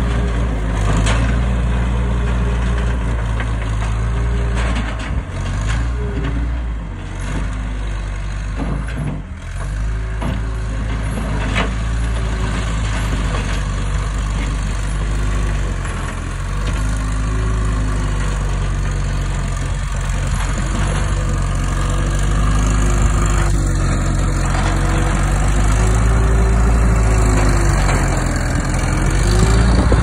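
Case 445CT compact track loader's diesel engine running steadily under work, with a whining tone that wavers up and down in pitch as the machine drives and pushes dirt. It grows louder near the end as the loader comes close.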